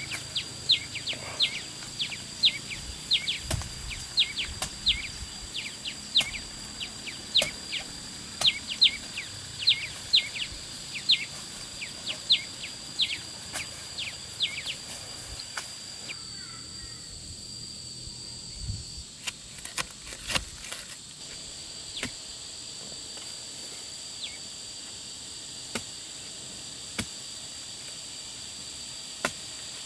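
A bird repeats a short falling whistle about one and a half times a second through the first half, then stops, over a steady high insect drone. Occasional sharp knocks come from a long-handled digging tool working the ground around bamboo shoots.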